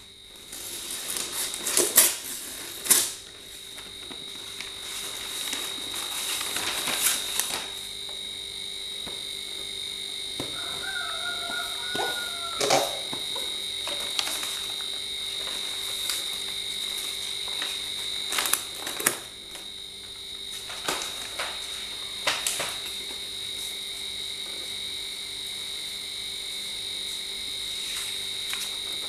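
Brown paper parcel wrapping being cut with a knife and torn off, then a cardboard box being opened and handled: loud paper crackles in the first few seconds, then scattered rustles and taps. A steady high-pitched drone runs underneath, with a brief wavering tone about eleven seconds in.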